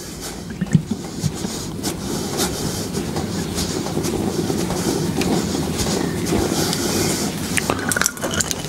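Thick tomato sauce being stirred briskly in a metal roasting pan, the utensil scraping and clicking against the pan. The stirring builds over the first few seconds and stops near the end.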